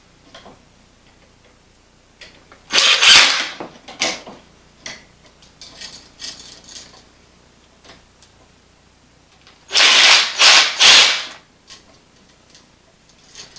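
Hand-tool and handling noise from work on a light switch and its wiring: loud scraping rattles of plastic and metal, one about three seconds in and three in quick succession near ten seconds, with scattered small clicks between them.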